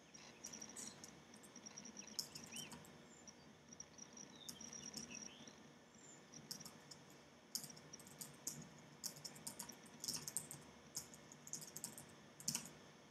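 Faint, scattered clicks and taps in small clusters over a low hiss, with a faint high chirping.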